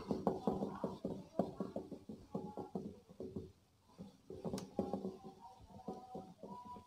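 A duster wiping marker off a whiteboard: a run of quick, irregular rubbing strokes with a short squeak near the end.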